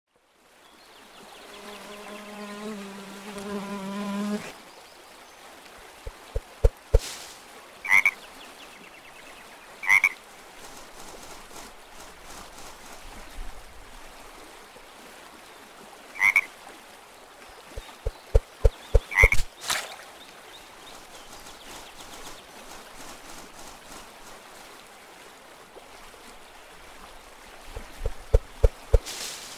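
Frog croaking: one long drawn-out croak near the start, then three bursts of quick repeated croaks, with a few brief high calls in between over a faint steady background.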